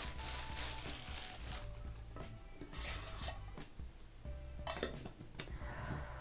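Metal candle tins being handled: a plastic bag rustling as one is unwrapped, then light metallic clinks and taps as the lid comes off and the tins are handled.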